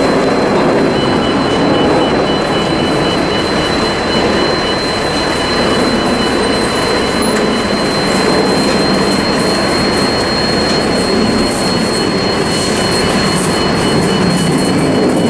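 Loud, steady mechanical noise with a thin, high whine held throughout, a constant drone of heavy machinery or traffic.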